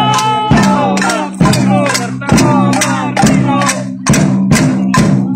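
Music with a steady drum beat and a sustained bass line.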